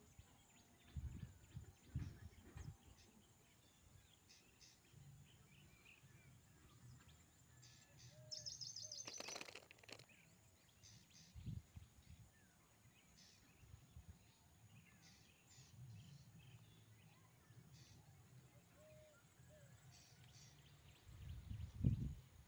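Quiet outdoor background with scattered short, high bird chirps. A few low thumps and a brief noisy rustle about nine seconds in.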